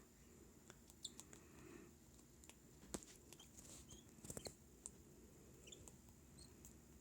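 Faint scattered clicks and a few tiny high peeps from baby cockatiel chicks being hand-fed from a syringe.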